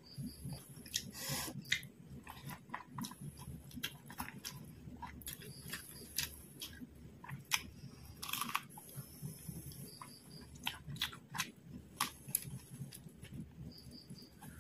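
A person chewing and biting into crisp fried quail, with many short wet smacks and crunchy clicks of eating.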